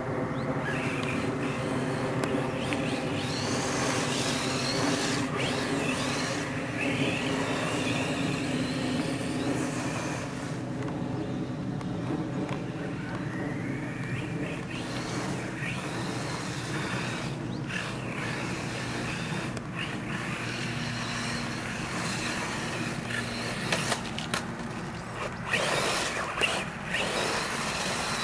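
Radio-controlled monster truck driving and turning, its motor pitch rising and falling as it speeds up and slows. There are a few sharp knocks near the end.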